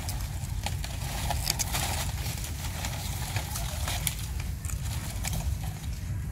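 Long-tailed macaque chewing a chunk of potato: a run of small crunching clicks, thickest about two seconds in, over a steady low rumble.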